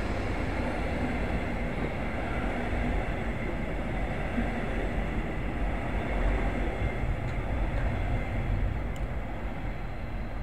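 Red double-deck regional train running across an elevated brick railway viaduct, a steady rolling rumble of wheels on rails.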